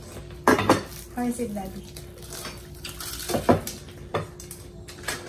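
Plates and cutlery clinking and clattering at a meal table, with a few sharp knocks spread through it and a short bit of voice about a second in, over a faint steady hum.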